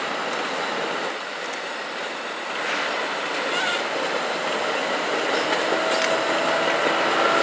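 New Jersey Transit double-deck Multilevel coaches rolling past close at speed: a steady rush and rumble of wheels on rail, with a few faint clicks. It grows louder near the end, and steady tones creep in.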